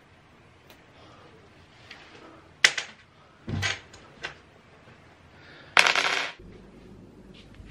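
Scattered sharp clicks and knocks from fitting white flat-pack kitchen cabinets, including a dull thud about three and a half seconds in. A louder clatter of hard parts lasts about half a second near the end.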